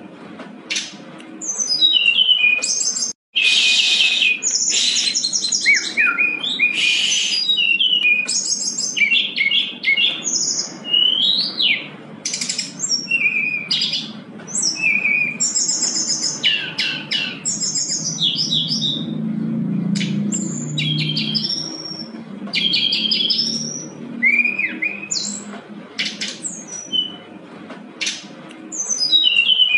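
Brown-chested jungle flycatcher singing a busy, varied song: short high phrases of quick trills, rising and falling whistled slurs and chips, one after another with brief gaps. The sound cuts out completely for a moment about three seconds in.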